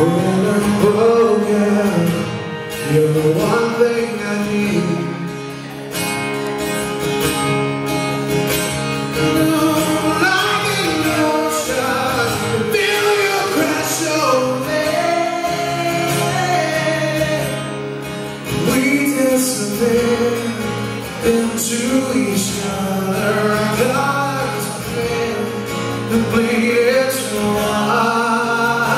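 Live concert performance of a rock ballad: a male singer sings into the microphone over strummed acoustic guitar, heard from the audience in a concert hall.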